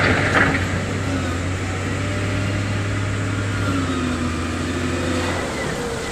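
Heavy diesel engine of construction machinery running steadily, its note sagging and rising again around the middle, with a short hiss at the very start.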